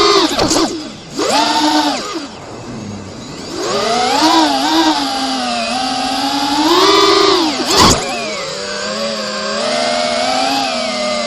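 FPV quadcopter's electric motors and propellers whining, the pitch rising and falling with the throttle, dropping back twice in the first few seconds before climbing again. A brief sharp noise cuts across about eight seconds in.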